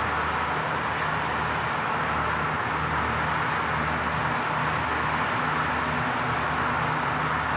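Diesel work train running: a steady low engine hum under a continuous rush of noise.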